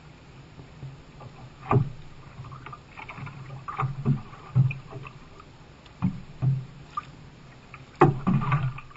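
Double-bladed paddle strokes splashing in choppy seawater, with small waves knocking against the sit-on-top canoe's hull under a steady low rumble of water. A sharp splash or slap comes every second or two, the loudest near the end.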